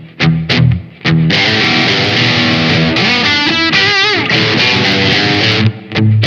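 SQOE SETL980 electric guitar with an HS pickup set, played with an overdriven, distorted tone. Short clipped chords give way about a second in to held chords with a wavering, bent note in the middle, then short stabs again near the end.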